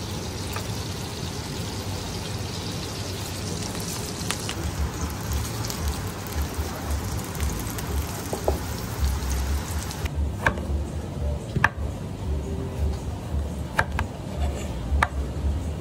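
Porterhouse steak searing in foaming butter in a stainless steel pan, a dense steady sizzle. About ten seconds in the sizzle stops and a few sharp clicks follow, from a knife cutting through a grapefruit onto a cutting board.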